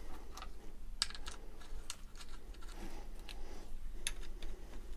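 Light, irregular clicks and taps of small bolts being picked up and fitted into the aluminium housing of a BMW M52 single Vanos unit.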